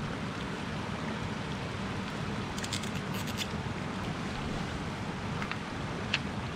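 Campfire crackling now and then over a steady low rush, with a quick run of small sharp clicks about three seconds in.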